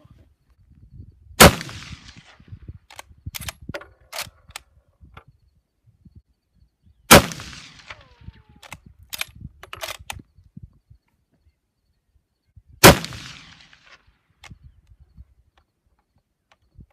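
Lee-Enfield bolt-action rifle in .303 British fired three times, about five and a half seconds apart. Each shot is followed by a cluster of metallic clicks and clacks as the bolt is worked to eject the case and chamber the next round.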